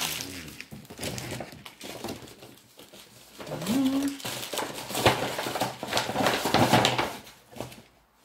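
Gift wrapping paper and packaging rustling and crinkling in irregular bursts as presents are unwrapped and handled, heaviest in the second half.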